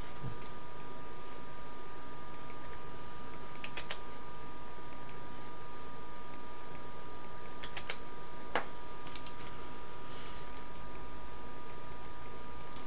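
Computer keyboard keystrokes and mouse clicks in small scattered clusters, over a steady background hiss with a constant faint high-pitched hum.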